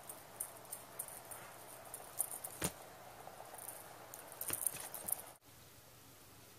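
A cat pawing at a wand toy on a fabric couch: faint scratching and rustling with a string of quick light ticks and one louder thump about two and a half seconds in. It cuts off sharply a little after five seconds, leaving a faint steady hiss.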